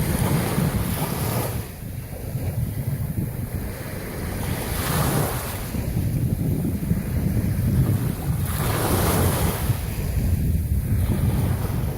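Strong sea wind buffeting the microphone with a steady low rumble, while surf washes on the shore, swelling three times: about a second in, around five seconds and around nine seconds.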